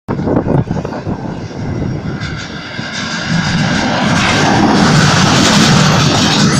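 Škoda 15T low-floor tram passing close by: a loud rush of steel wheels on rail, with a high electric traction-motor whine, swelling over the first few seconds and then holding steady.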